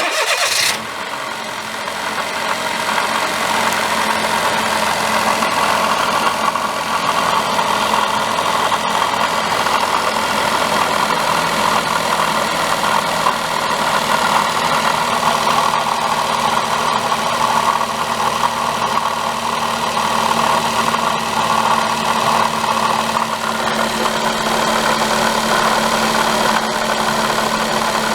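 Daihatsu Mira Cocoa's 660 cc three-cylinder engine starting up abruptly, then idling steadily with an abnormal noise from a failing water pump, a fault common on Daihatsu cars.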